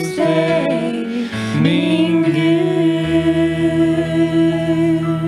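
Several voices and an acoustic guitar ending a worship song: the voices slide onto a final chord and then hold it as long, steady notes.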